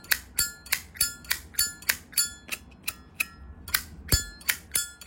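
Zippo lighter made in 1992, its lid flicked open and snapped shut again and again: about three sharp metallic clicks a second, each with a short bright ring.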